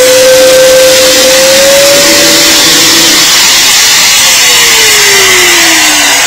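Electric angle grinder with a polishing wheel running at full speed, the wheel grinding against the dirty surface of a wooden plank to smooth it. From about four seconds in the motor's whine falls steadily in pitch as the grinder slows.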